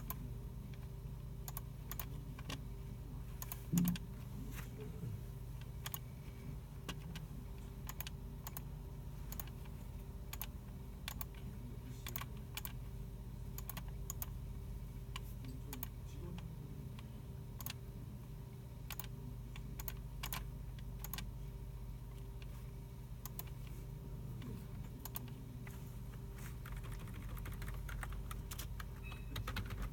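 Scattered computer keyboard typing and mouse clicks from several users in a computer room, irregular and unhurried, over a steady low hum. One louder knock about four seconds in.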